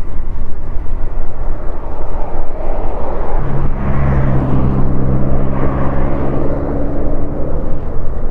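Wind rumbling and buffeting on the microphone. About three and a half seconds in, a steady engine drone sets in and holds.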